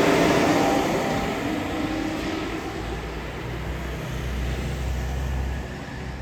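Double-decker bus running, heard on board: a loud rushing hiss with a whine fades over the first two or three seconds, leaving a steady low engine hum.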